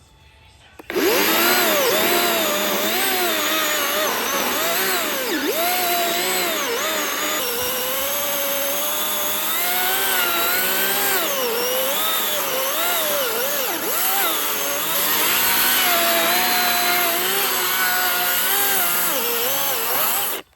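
Battery-powered chainsaw cutting into a tree stump, its motor whine dipping and rising as the chain bites and frees up. It starts abruptly about a second in and cuts off suddenly near the end.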